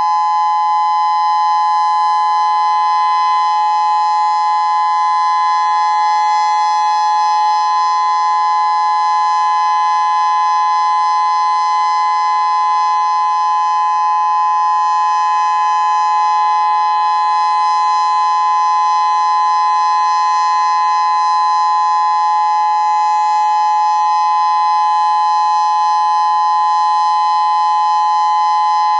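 Federal Signal Modulator 6024 electronic outdoor warning siren sounding a loud, steady alert tone at an unchanging pitch, with no rise and fall, during a siren test.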